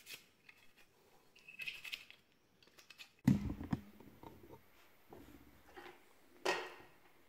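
Small plastic RC car body parts being handled and set down on a cutting mat: a few light clicks and taps, with one louder knock about three seconds in.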